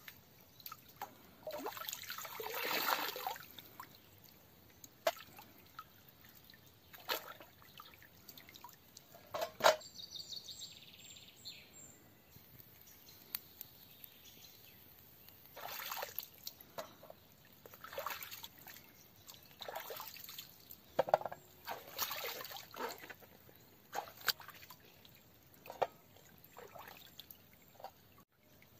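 Stream water splashing and pouring as a metal tray and vegetables are dipped and rinsed in a shallow stream, in several short bursts.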